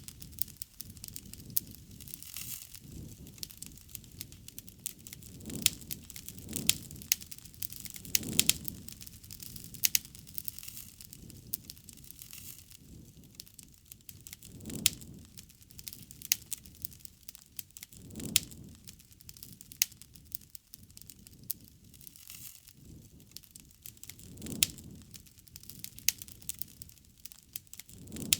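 Wood fire crackling, with frequent sharp pops and snaps of burning wood. Soft low swells of sound rise and fall every two to three seconds.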